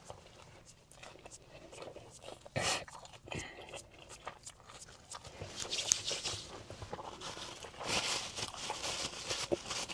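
Close-up eating noises from a person chewing: a run of small wet clicks and smacks, with a few louder crunchy or rustling bursts about two and a half, six and eight seconds in.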